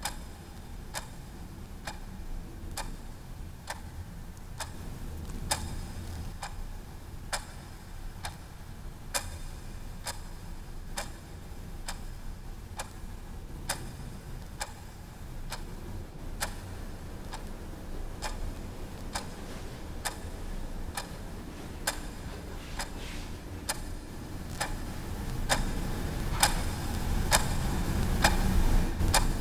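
Clock ticking steadily, about one tick a second, over a low rumble that swells over the last few seconds and cuts off.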